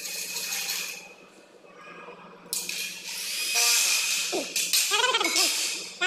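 Aluminium frame sections clinking and scraping against each other and the concrete floor as they are handled. A louder stretch of scraping starts suddenly about halfway through.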